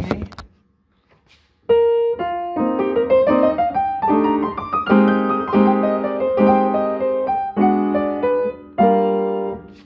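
Upright piano played: after a brief silence, a rising run of notes, then a series of chords, the last one left to ring out near the end.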